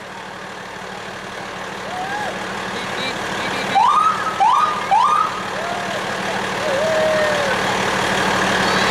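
Fire truck siren given three short rising whoops in quick succession about four seconds in. They sound over the steady hum of the truck's engine, heard from inside the cab.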